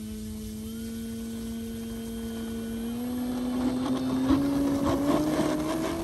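Electric RC model plane's brushless motor and propeller running with a steady whine, then rising in pitch from about three seconds in as the throttle opens for a takeoff run. A growing crackly noise rides along with it over the last few seconds.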